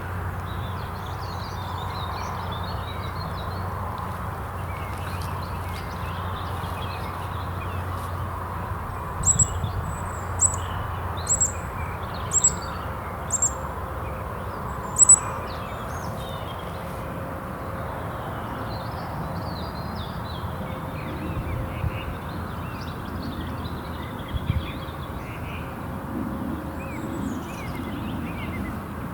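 Evening birdsong in spring woodland over a steady low rumble of wind. About a third of the way in come six sharp, high squeaks about a second apart, the call of a roding Eurasian woodcock flying over.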